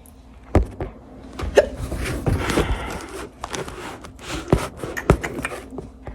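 A woman hiccuping several times: short, sharp hiccups spaced out over a few seconds.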